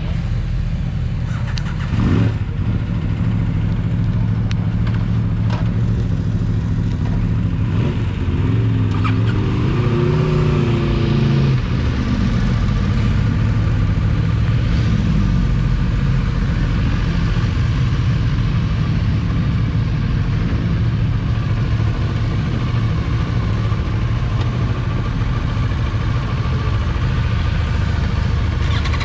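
Motorcycle engine running steadily while riding. Its pitch climbs for a few seconds about eight seconds in, then drops back, as the bike accelerates.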